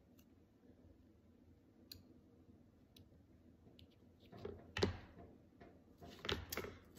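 Small wooden cutout pieces being set down and pressed by hand onto a wooden base: faint scattered clicks at first, then a run of knocks and rubbing from about four seconds in, with the loudest knock near the middle.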